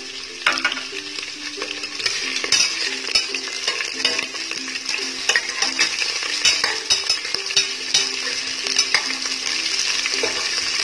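Chopped onions frying in hot oil with cashews and whole spices, sizzling steadily, while a metal slotted turner stirs them with repeated scrapes and clicks against the steel pressure cooker.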